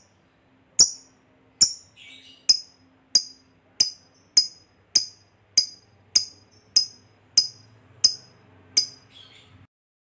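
Lovebird giving a long run of sharp, high-pitched chirps, about thirteen in a row roughly two-thirds of a second apart: the drawn-out 'ngekek panjang' calling that keepers prize. The calls stop shortly before the end.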